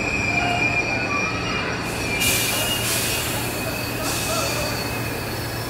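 Heritage passenger carriages rolling along a station platform, their wheels squealing on the rail in a steady high whine over a low rumble. Bursts of hiss come about two seconds in and again about four seconds in.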